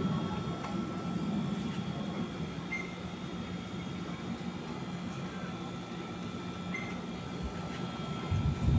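Aircraft engine running steadily, a constant drone with a thin high whine over it; a brief low thump near the end.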